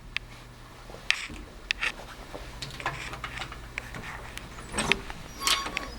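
Hotel luggage cart being pushed along a hallway: a steady low rumble with scattered knocks and clicks throughout.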